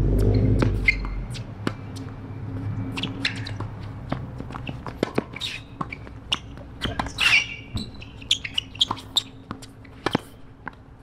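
Tennis rally on an outdoor hard court: sharp racket strikes and ball bounces every second or so, with shoe scuffs and squeaks on the court surface. A low rumble fills the first second.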